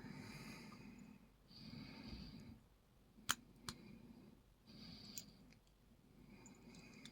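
Faint, slow breathing with a few small sharp clicks about three seconds in, as the lock's plug is slid out with a follower.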